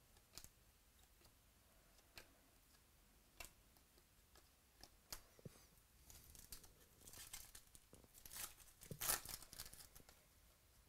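Trading cards flicked through by hand, a few faint light clicks, then the rustle and crinkle of a card-pack wrapper as the cards are pulled out, loudest about nine seconds in.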